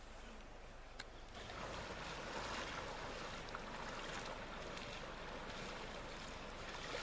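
River water rushing steadily, coming in about one and a half seconds in after a single click.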